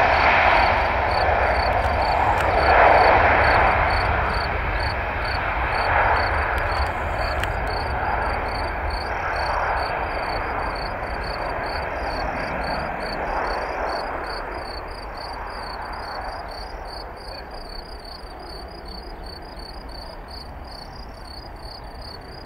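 Airbus A330's twin jet engines at takeoff thrust, a loud rushing noise as the airliner rolls, lifts off and climbs away, fading steadily over the last several seconds. An insect chirps faintly in an even rhythm throughout.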